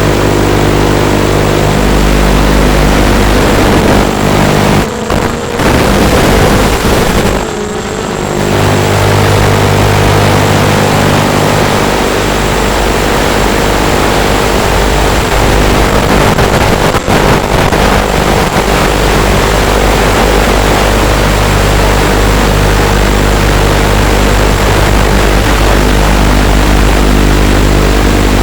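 Eachine Racer 250 quadcopter's motors and propellers running loud and steady in flight, with two brief dips in throttle about five and eight seconds in.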